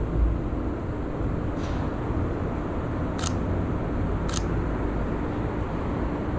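Sony A7III camera's shutter firing three times, short sharp clicks, the first faint and the last two about a second apart, over a steady machine hum.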